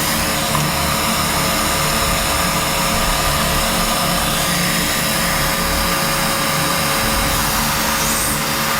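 Parrot Bebop quadcopter's motors and propellers running steadily, a constant whirring hum with a steady whine in it.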